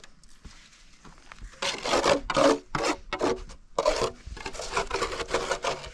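A hand tool scraping brick or mortar in quick rasping strokes, about three a second, starting about a second and a half in, as the brickwork is levelled and smoothed.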